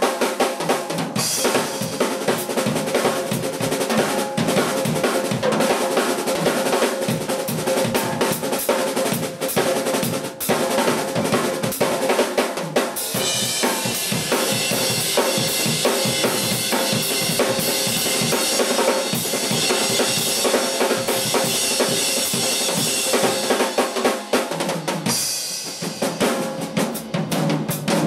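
Drum kit solo: fast, dense strokes on snare, toms and bass drum. Through the middle stretch the cymbals crash and wash continuously, dropping away near the end while the drums play on.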